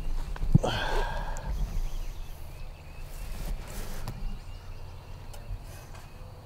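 A plastic electronic game call being picked up and handled: a sharp knock about half a second in, followed by a brief pitched tone that rises and then holds for about a second, then faint rustling.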